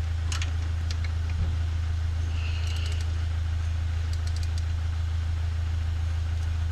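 Ratchet spanner clicking in short runs as the alternator's mounting bolts are tightened, over a steady low hum.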